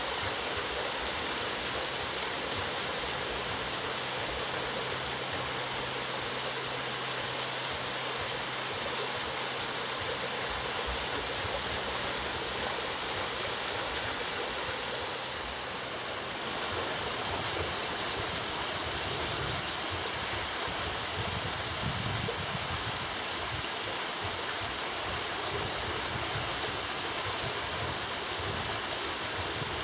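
Steady rush and splash of water falling at an overshot water wheel and down the small cascade in its mill race.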